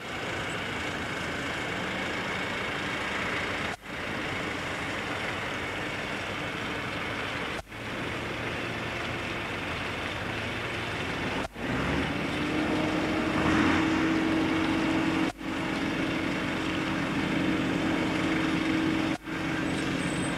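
Steady engine noise with no words over it. A low droning tone comes in about twelve seconds in, and the whole sound drops out for a moment roughly every four seconds.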